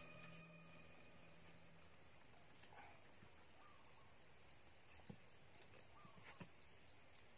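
Faint, steady insect chirring: a high pulsing trill that runs on evenly. A few faint knocks come about five and six and a half seconds in.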